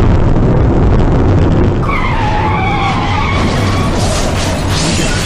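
Car road and engine noise heard from inside the cabin, with tyres skidding: a wavering screech from about two seconds in, lasting over a second, then a harsher hiss near the end.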